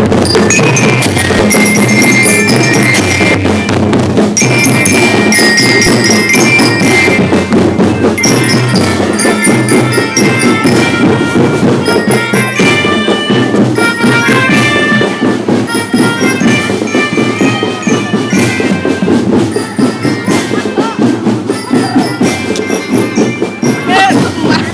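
School drum band playing a march: snare and bass drums keep a steady beat under a bright, bell-like melody of short notes.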